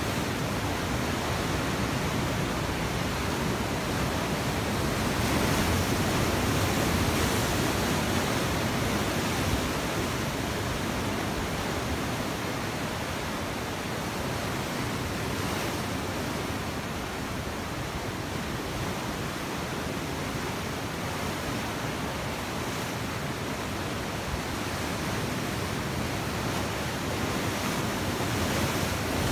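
Atlantic surf breaking and washing over rocks and a stone pier wall: a steady rush of white water that grows a little louder about five to eight seconds in.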